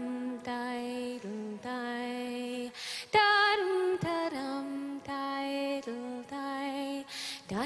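A woman singing alone without accompaniment: slow phrases of long held notes that glide from one to the next, with a breath between phrases about three seconds in and again near the end.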